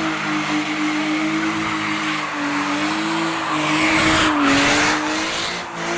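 A drifting car: its engine held at high revs, the pitch wavering up and down as the throttle is worked, with tyres screeching as they slide, the screech swelling to its loudest about four to five seconds in.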